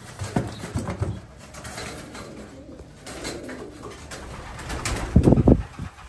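Racing pigeons cooing, with a few sharp clicks early and a louder low burst about five seconds in.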